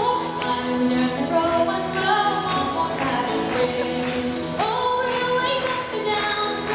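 Live music: a melody line moving over a steady low drone, with short percussive strokes.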